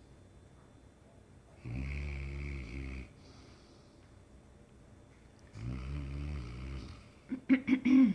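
A sleeping mastiff snoring: two long, deep snores about four seconds apart, each lasting about a second and a half. Near the end there is a quick run of short, louder sounds.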